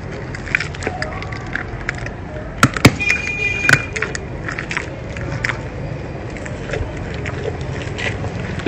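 Lion gnawing and crunching on a raw meat bone held out by hand: scattered wet clicks and cracks, the loudest cluster about three seconds in, over a steady low rumble.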